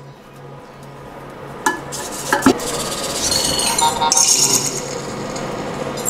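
Knocks and clinks as a small plastic Emo robot is set down on a microwave's glass turntable: two sharp knocks about two seconds in, then a rising rustling hiss of handling.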